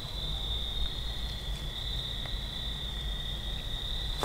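Steady high-pitched chorus of night-singing insects over a low rumble, with a short sharp noise right at the end.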